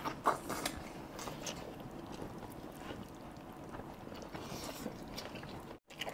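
Quiet, wet eating sounds of people biting and chewing curry-soaked chicken leg pieces: scattered short clicks, a little more frequent in the first second or two. The sound cuts out for an instant near the end.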